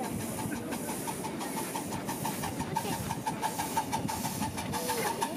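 Coal-fired miniature live-steam locomotive running with a rapid, regular beat, growing louder as it comes closer.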